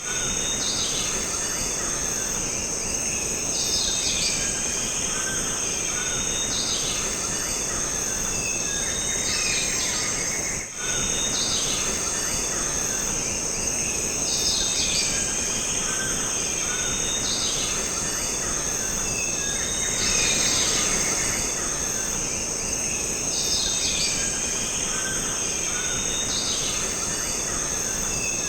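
Jungle ambience: a steady, high-pitched insect drone with bird calls repeating over it, and a brief dip in level about eleven seconds in.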